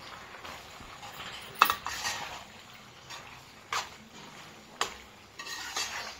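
Steel spoon stirring macaroni and minced-meat masala in a non-stick pan: soft scraping, with a few sharp clinks of spoon on pan. The loudest clink comes about a second and a half in, and others come near four and five seconds.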